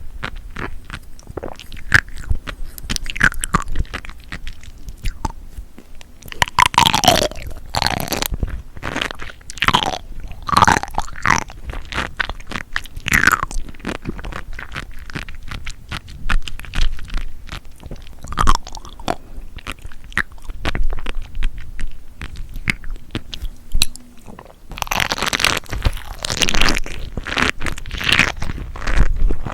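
Close-miked chewing and biting of seafood: dense crunchy, crackling mouth sounds with louder wet smacks in clusters, heaviest about a quarter of the way in and again near the end.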